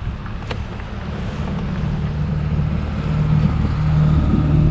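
Wind buffeting the microphone, with a steady engine hum that grows louder from about two seconds in.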